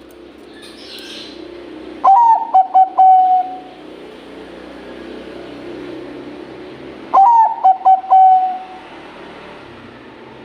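Bangkok-type perkutut (zebra dove) singing its loud, deep cooing song twice, about five seconds apart. Each phrase opens with a note that drops in pitch, stutters through a few quick notes, then ends on a long held coo. A steady low hum runs underneath.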